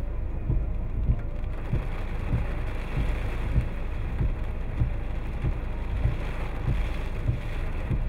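Typhoon wind and rain beating on a car, heard from inside the cabin: a steady rushing hiss with irregular low thumps from the gusts.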